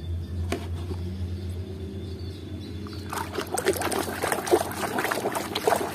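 A hand sloshing and splashing in a plastic basin of muddy water, washing a toy; the splashing starts about halfway through, over a low steady hum.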